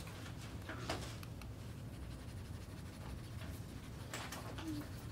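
Faint scratchy writing strokes with a few soft taps, over a steady low room hum.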